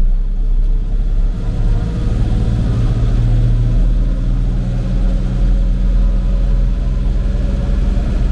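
Old tractor engine running steadily under load while hauling a full manure box, with an even low engine note.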